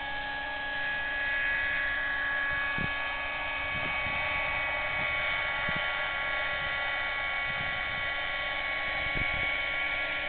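Thunder Tiger Raptor 50 V2 nitro RC helicopter flying: its nitro engine and rotors run steadily as a high whine made of several held tones.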